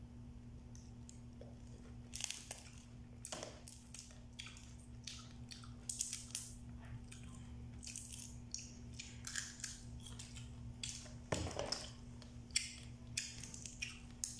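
Cooked blue swimmer crab shell being cracked and picked apart by hand, with a run of irregular sharp cracks, snaps and clicks. A steady low hum sits underneath.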